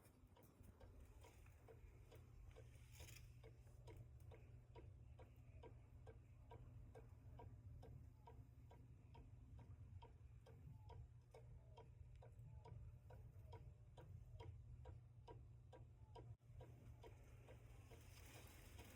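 Vintage German Black Forest cuckoo clock ticking faintly and evenly, about three ticks a second.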